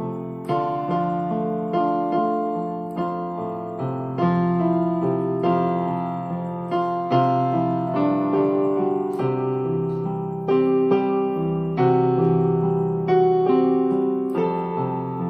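Background piano music: slow notes and chords, each struck and left to fade before the next, about once a second.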